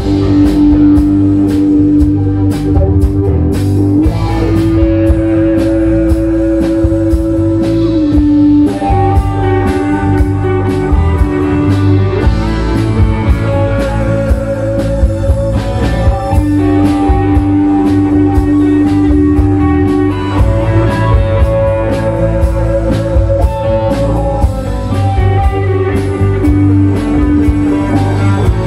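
Live rock band playing a blues-rock number on electric guitars, keyboard and drums, with long held notes over a steady beat.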